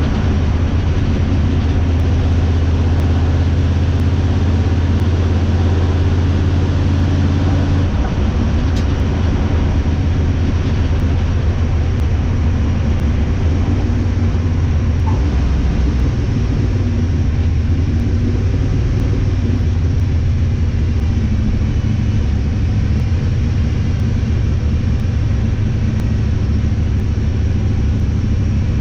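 A 1968 Chevrolet C10 pickup's engine running steadily with a deep, low note. Its tone shifts about eight seconds in.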